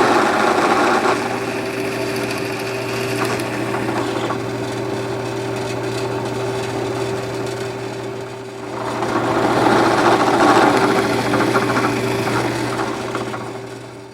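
Benchtop edge sander running with a steady motor hum, its belt grinding louder as oak pieces are pressed against it near the start and again from about nine seconds in.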